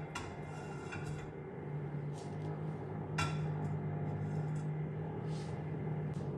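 Kitchenware clinking and knocking a few times as someone works at a kitchen counter, the loudest, ringing clink about three seconds in, over a steady low hum.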